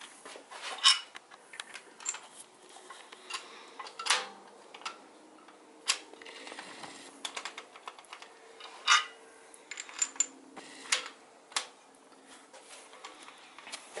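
Irregular sharp metallic clicks and clinks as steel rocker arms are set by hand onto the push rods of a 6.7 Cummins cylinder head, one every second or two.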